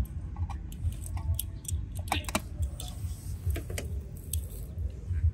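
Light, scattered clicks and taps of a small die-cast toy car being handled, over a low rumble.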